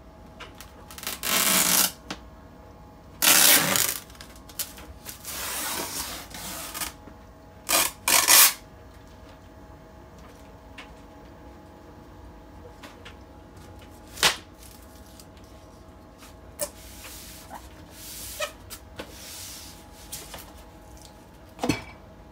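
Packing tape being peeled off a styrofoam box, in four loud tearing pulls over the first nine seconds. Later come softer scrapes and a few sharp knocks as the polystyrene lid is worked loose and lifted off.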